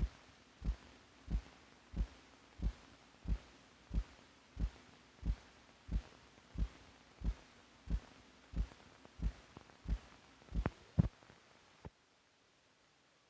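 Recorded heartbeat: regular low thumps at about one and a half beats a second. Near the end come two louder beats close together, then the beating stops, leaving faint hiss.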